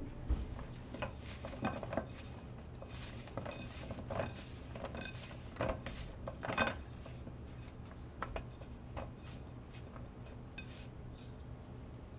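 Slices of lotus root and burdock knocking and clicking against a shallow dish as they are tossed by hand in glutinous rice flour, in irregular clusters of light knocks, loudest about six and a half seconds in.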